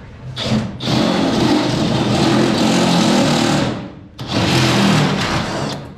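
Cordless drill spinning a step drill bit through a sheet-metal panel: a short spin about half a second in, then a steady cutting run of about three seconds, a brief stop, and a second run.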